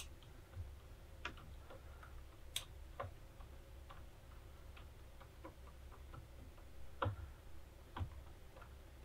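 Faint, irregular small clicks and taps of metal cable ring terminals being turned and settled on a motorcycle battery post by hand, over a low steady hum.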